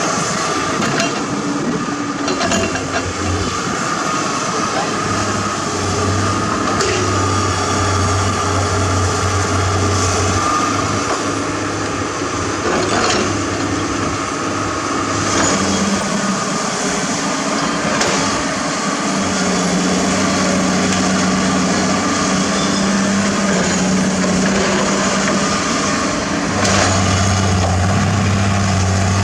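Heavy diesel engines of a hydraulic excavator and dump trucks working, a steady low engine hum whose note shifts a few times as the load changes, with scattered clanks and knocks from digging and loading.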